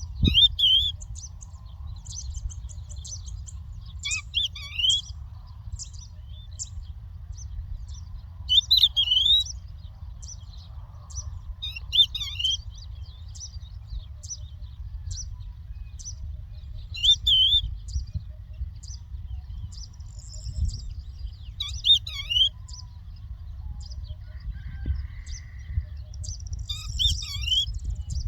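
Larks singing: a loud, short warbled phrase repeated about every four to five seconds over a busy run of short, high chirps. A steady low rumble runs underneath.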